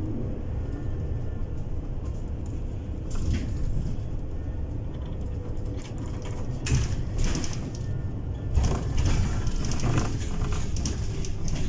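Inside a moving Bolloré Bluebus 12-metre electric bus: low road rumble under a steady hum, with louder bursts of rattle and hiss about three, seven and nine seconds in.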